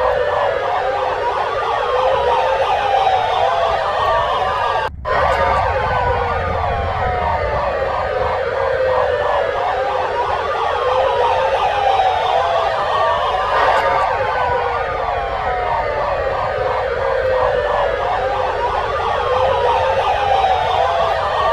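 Several sirens wailing at once, their pitches rising and falling out of step with each other, with a brief dropout about five seconds in.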